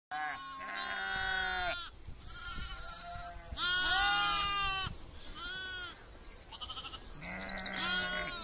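Lambs bleating: about half a dozen wavering calls at different pitches, some overlapping, one after another with short gaps.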